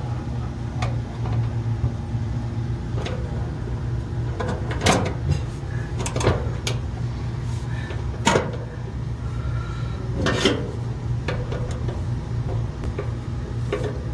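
Samsung dryer idler pulley assembly being taken off and fitted: a dozen or so sharp clicks and knocks of part handling, the loudest about five, eight and ten seconds in. A steady low hum runs underneath.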